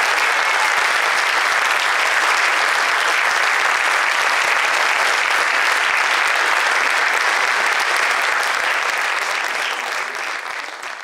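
Audience applauding steadily, a dense even clapping that fades out in the last second or so.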